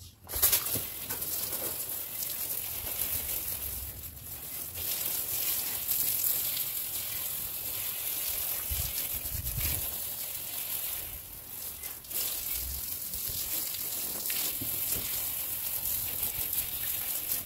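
Water spraying steadily onto a brick wall, wetting it down to wash off the dust before rendering. The spray eases off briefly twice.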